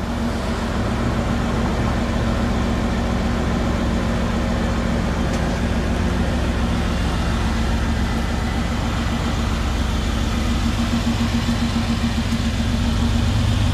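Car engine idling: a steady low hum with a constant drone, growing a little louder near the end.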